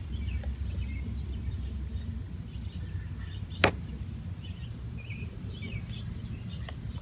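Outdoor ambience: a steady low rumble with faint bird chirps, and a single sharp click about three and a half seconds in.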